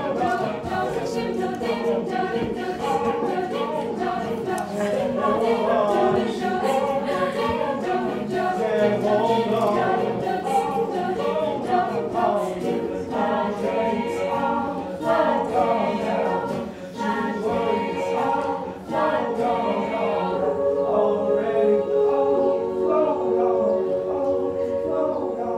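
A choir singing in several-part harmony, apparently without instruments, settling onto long held notes near the end.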